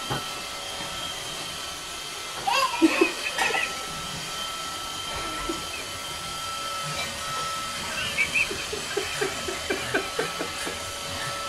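Roomba robot vacuum running with a steady whir and a high, even whine. A few brief voice sounds come about two and a half seconds in, and a string of short ones from about eight seconds.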